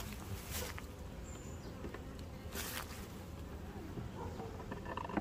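Asian honeybees buzzing at a hive, a steady low hum.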